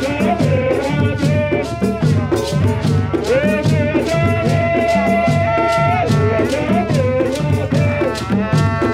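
Live traditional drum-and-rattle music: barrel drums keep a steady beat while rattles shake in quick, regular strokes, under a held melody line that slides between notes.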